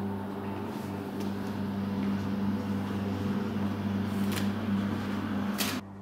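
A steady low hum with a few faint taps of rubber-soled sneakers stepping on a tiled floor. Near the end the hiss cuts off suddenly and the sound becomes quieter.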